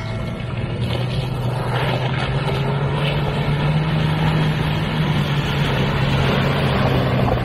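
A motor running with a steady low hum that grows louder over the first couple of seconds and then holds, its pitch rising slightly and settling again.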